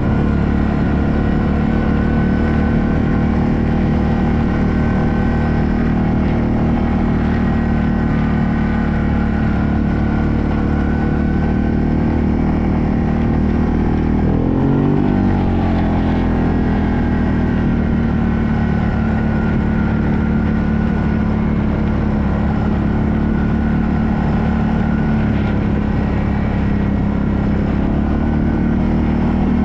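ATV engine running steadily under way on a dirt trail. About halfway through, the engine note drops and then climbs again as the machine slows and picks back up.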